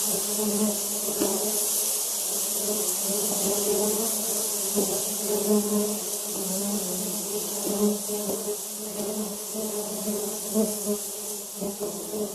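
Many honey bees buzzing together in a steady, wavering hum.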